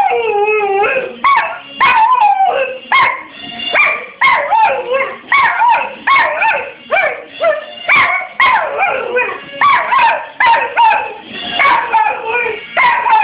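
A dog howling along to a pop song, in a run of rising-and-falling 'woo-hoo' howls about a second each, over the song's music.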